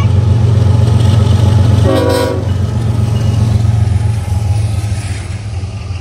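BNSF diesel freight locomotives passing close by, their engines running loud and steady, with one short horn toot about two seconds in. The engine sound eases near the end as the autorack cars roll past.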